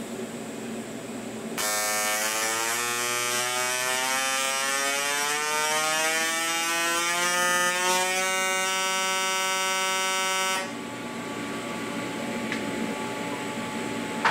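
AC TIG welding arc from a Miller inverter welder buzzing, its pitch climbing steadily as the AC frequency is turned up from about 100 Hz to about 200 Hz. The arc strikes about two seconds in and cuts off sharply about ten seconds in.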